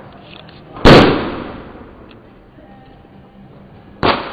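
Two firecracker bangs. The first, about a second in, is very loud and echoes away. The second comes about three seconds later and is quieter.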